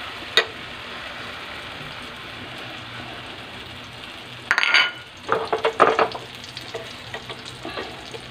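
Okoy batter of squash and bean sprouts frying in hot oil in a nonstick pan: a steady sizzle. There is a sharp knock just after the start, and about halfway through comes a cluster of louder knocks and scrapes of a utensil against the pan.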